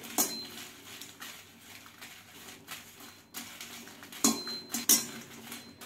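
Slotted stainless-steel spatula scraping and clinking against a stainless-steel kadai as dried red chillies are stirred while dry-roasting. Mostly quiet, with two louder scrapes between four and five seconds in.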